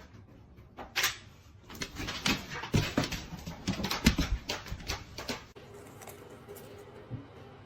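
Sounds from a dog: a dense, irregular run of short noises lasting about four seconds, which stops abruptly.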